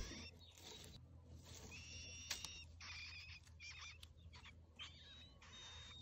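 Nestlings begging at the nest: thin, high cheeping calls in short runs, some sliding in pitch, as the parent bird feeds them. A sharp click comes at the very start and another a little after two seconds in.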